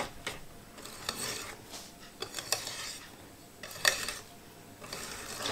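Kitchen utensils clinking and scraping against dishes: scattered sharp clicks with a few short scraping swishes between them.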